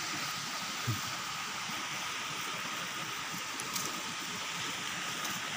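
Steady rushing noise of flowing river water, with a short low bump about a second in.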